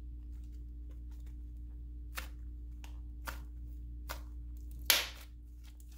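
Butter slime being stretched and kneaded by hand, giving a few soft clicks and one louder sharp pop about five seconds in.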